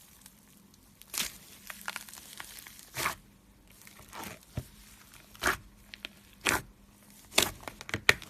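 Coffee-style slime squeezed and pressed by hand, giving short crunchy, crackling pops about once a second.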